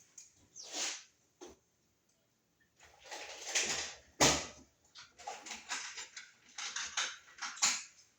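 Handling noise of electrical wire and hand tools: irregular rustling and scraping bursts, with a sharp knock about four seconds in.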